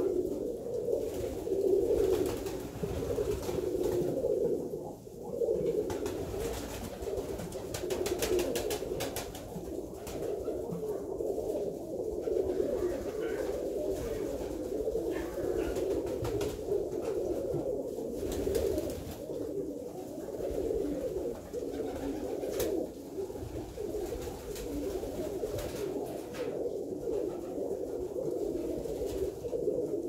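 Alföldi-Körösi tumbler pigeons cooing, many birds overlapping in a continuous low chorus, with a few short clicks about a third of the way in and again later.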